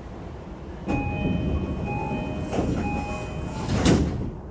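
E233 series 2000-number subseries train's door-closing chime, a two-tone chime repeated about three times while the sliding doors close, ending in a thud as the doors shut about four seconds in.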